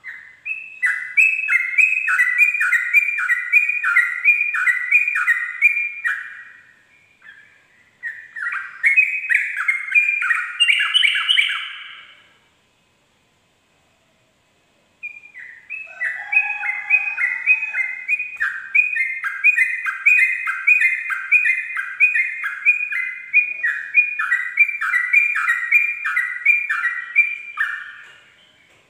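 Yellow-vented bulbul (trucukan) singing its rapid 'ropel' song: long runs of repeated two-note phrases, about two a second. It comes in three bouts, with a silent gap of two or three seconds about halfway through.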